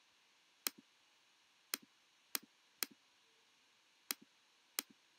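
Six sharp computer clicks, irregularly spaced. Each is followed by a softer click a moment later, a button pressed and then released.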